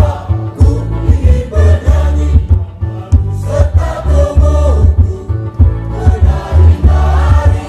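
Church choir singing, carried over a heavy, pulsing low beat.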